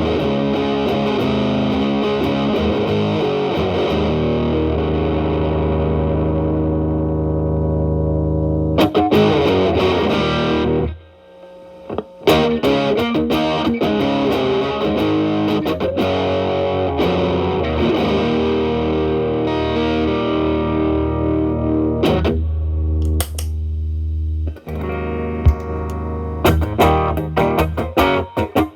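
Telecaster electric guitar through an E.W.S. Brute Drive distortion pedal into a Marshall Valvestate amp, played with a cleaned-up overdrive tone. A chord rings for about nine seconds and cuts off briefly about eleven seconds in, then the playing carries on.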